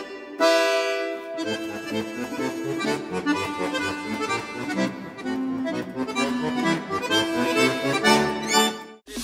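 Music: a melody of held notes, with a bass line coming in about a second and a half in; it cuts off suddenly near the end.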